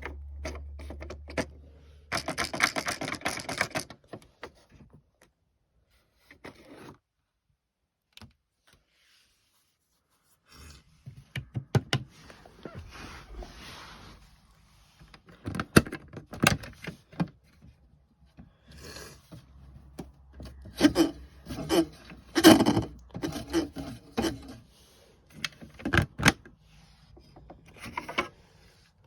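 Plastic toy washing machines being handled: irregular clicks, knocks and scrapes, with a short dense rattling burst about two seconds in and a quiet spell in the middle.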